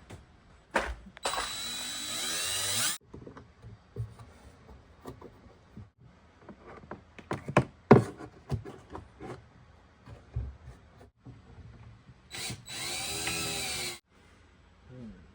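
Power drill driving screws to mount a cabinet door strut: two runs, the first about two seconds and the second about a second and a half, the motor pitch rising and falling as it speeds up and slows. Clicks and knocks of parts and tools being handled come between the runs.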